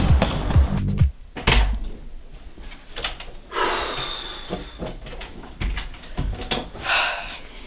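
Background music with a beat cuts off about a second in. It is followed by a sharp knock and scattered knocks and rustles of handling in a small room, like a cupboard or door being worked.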